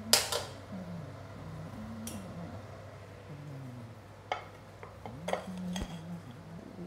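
Clinks and knocks of dishes and utensils against a stainless steel pot as food is arranged in it: a sharp clink right at the start, then a few lighter, separate clinks and taps through the rest.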